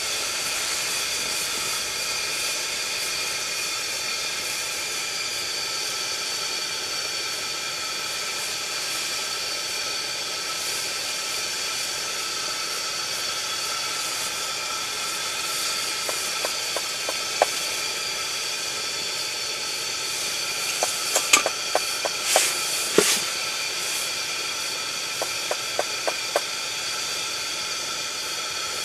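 Steady hiss of a pressurised burner heater running. Scattered light clicks and taps come in the second half, with a few sharper ones about two-thirds of the way in.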